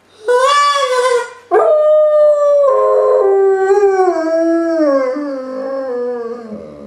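Dog howling in reaction to a squeaky, goose-call-like noisemaker: a short cry, then one long moaning howl of about five seconds that slowly falls in pitch.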